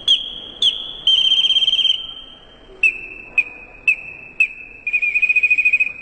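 Small replica Inca hummingbird whistle blown to imitate a hummingbird: a high piercing note started in short sharp chirps and shaken into fast warbling trills. About midway the note drops to a slightly lower pitch, with four more chirps and a final trill.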